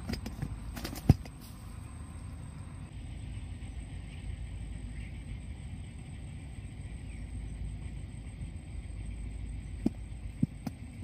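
Wind rumbling on the microphone by open water. There are a few sharp clicks and knocks in the first second and a half, the loudest about a second in, and a couple more near the end.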